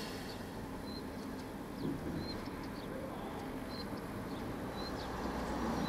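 Faint steady hum of vehicles with a few short, high bird chirps about once a second.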